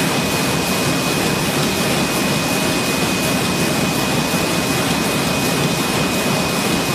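High-speed UV varnishing machine running at speed: a steady, loud mechanical rush with a constant high-pitched whine over it.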